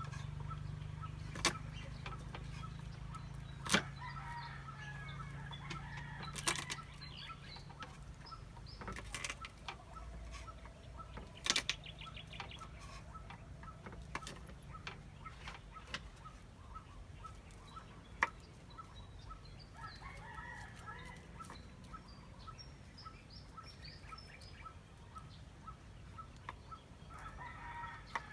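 Chickens calling several times, mixed with scattered sharp knocks and clicks. A faint, even ticking about twice a second runs through the second half.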